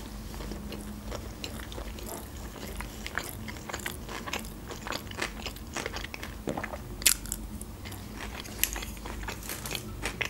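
Close-up chewing of sushi rolls with a crunchy topping: wet, crisp crunches and crackles in the mouth, irregular and frequent, with one louder crunch about seven seconds in.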